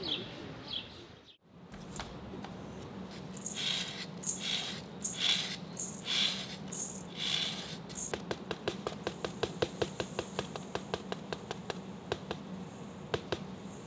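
Birds chirp briefly at the start. Then granular salt and dry yeast are sprinkled into a stainless steel stand-mixer bowl of dough: first a few short hissing sprinkles, then, from about eight seconds in, a quick run of fine ticks as the yeast granules patter in. A steady low hum runs underneath.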